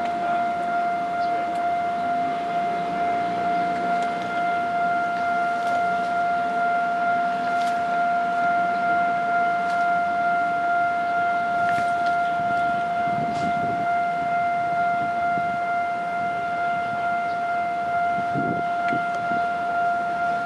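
Railway level-crossing warning alarm sounding one steady, unbroken tone as a train passes. Under it, the passing coaches' wheels rumble, with a couple of dull clunks in the second half.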